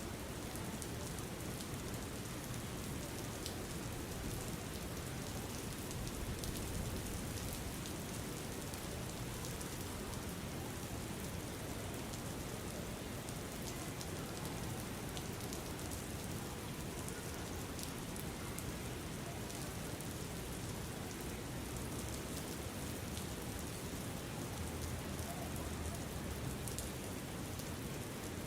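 Steady rain ambience: an even hiss of falling rain with faint scattered drop ticks, unchanging throughout.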